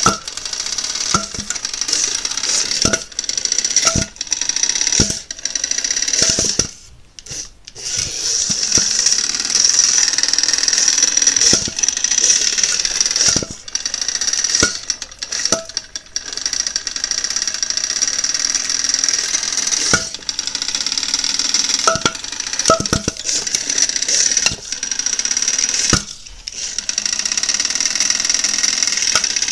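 Hexbug Tombstone toy robot's small weapon motor spinning its 3D-printed asymmetric blade with a steady high-pitched whine, broken by many sharp knocks as the blade and robot strike a styrofoam block. The whine cuts out briefly about seven seconds in and again near the end.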